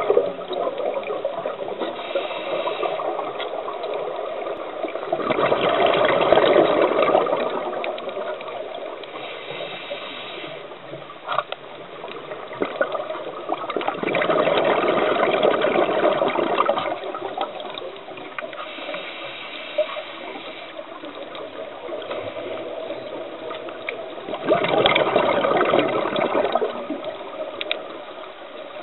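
Scuba diver's breathing heard underwater: three long rushes of exhaled bubbles from the regulator, about ten seconds apart, with quieter hissing breaths in between.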